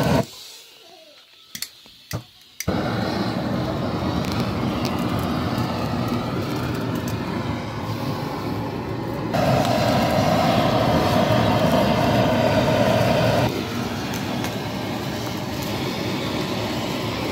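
Hose-fed gas torch burning with a steady rushing noise as it singes the skin of a plucked chicken, coming in after two sharp clicks about two seconds in. For about four seconds in the middle it is louder, with a steady tone through it.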